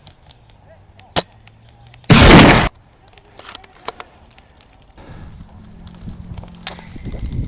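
Airsoft gunfire: a sharp single shot about a second in, then a very loud half-second burst of rapid fire about two seconds in, and another sharp shot near the end.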